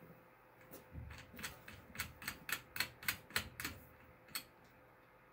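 Light metal clicks and taps as nuts and a bus bar are fitted by hand onto the threaded terminal studs of lithium titanate battery cells. A dozen or so quick clicks come about three a second, ending with a single one about four seconds in.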